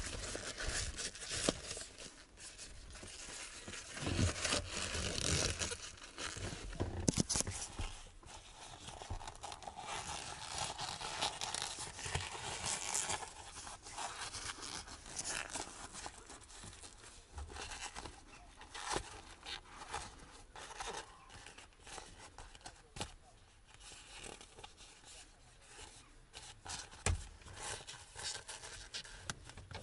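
Leather gear-lever boot being handled and worked down over the gear lever, crinkling and rubbing, with scattered small clicks.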